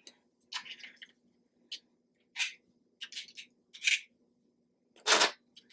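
Scattered short clicks and rustles of fingers handling a small homemade eyeshadow palette, with a stronger one near the end, over a faint steady hum.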